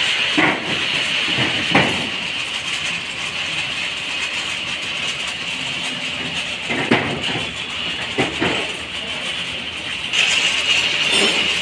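Metal loom parts being handled onto a truck bed: a few short clanks and knocks over a steady mechanical din, with brief voices. The din grows louder about ten seconds in.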